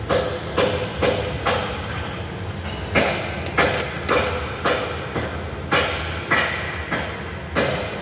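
Hammer blows on the underside of a plywood floor panel, a steady run of sharp knocks about two a second with a short pause about two seconds in.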